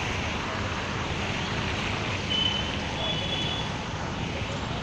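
Steady road traffic noise in a jam, with two short high beeps a little past the middle, the second a bit longer.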